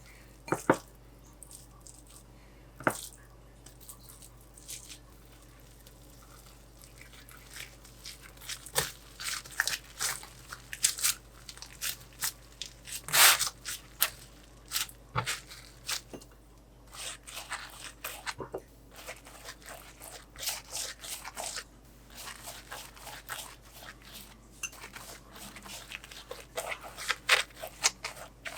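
Kitchen handling sounds during food preparation: a run of short clicks, crunches, rustles and tearing-like crinkles, sparse at first and busier from about eight seconds in.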